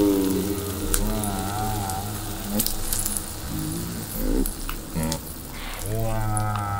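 Egg frying in a pan, sizzling, with several drawn-out wavering pitched sounds over it, like low moaning or sung notes. A few sharp clicks come in between.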